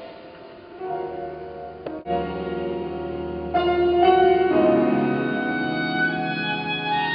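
Live ambient music with a bowed violin over layered, sustained tones. New notes enter about a second in and again just after a brief dropout at two seconds, and the music swells louder at about three and a half seconds.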